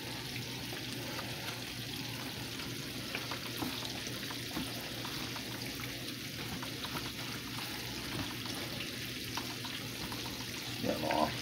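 Fish frying in hot oil: a steady sizzle with scattered small crackles.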